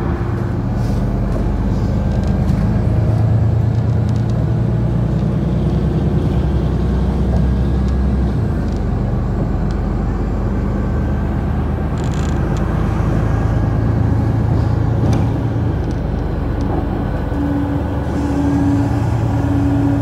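Steady engine and road noise heard from inside a moving bus, the engine note shifting a few times as it speeds up and slows. A short tone repeats about three times near the end.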